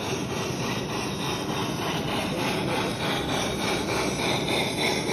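Small live-steam garden railway locomotive running, giving a quick rhythmic hissing chuff of a few beats a second over a steady background hubbub, growing a little stronger toward the end.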